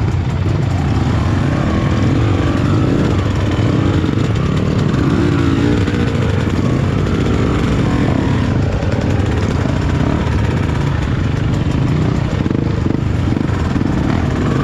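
Off-road motorcycle engine running steadily while riding, under a constant rush of noise; the engine pitch wavers slightly.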